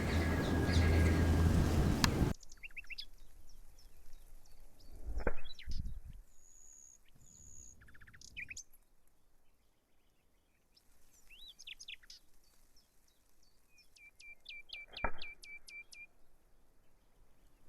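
Songbirds chirping and calling, including a quick run of repeated notes near the end. In the first two seconds there is a loud rushing noise, and two dull thumps come about ten seconds apart.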